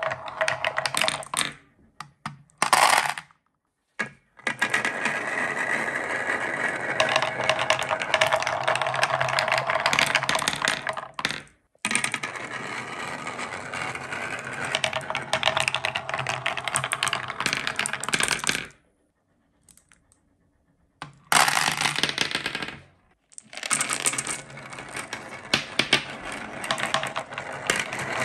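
Glass marbles rolling and clattering down a wooden slope marble run, clicking against the wooden deflector blocks and each other in rapid runs of knocks. The clattering stops abruptly several times with short silent gaps, most clearly for about two seconds just before the 20-second mark.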